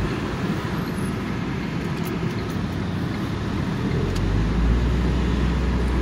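Van running on the road, engine and tyre noise heard from inside the cabin. About four seconds in, a deep, steady drone sets in and it grows a little louder.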